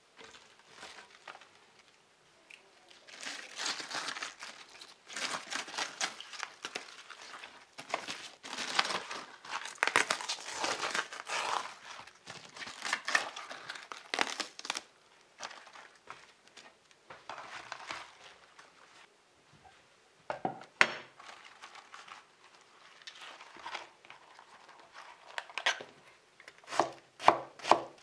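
Crisp napa cabbage leaves crinkling and tearing as they are broken off the head, with a single knock about two-thirds through. Near the end, a chef's knife slices radicchio on a wooden cutting board in a quick, even run of strokes.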